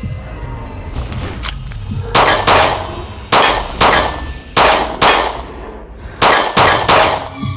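Smith & Wesson Equalizer 9mm semi-automatic pistol firing nine shots: three quick pairs, then a fast string of three near the end. Each shot rings briefly.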